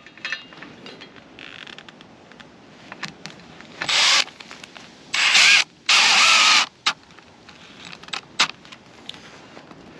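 Power drill run in three short bursts, about four, five and six seconds in, its motor pitch wavering, with scattered clicks and knocks of handling around them.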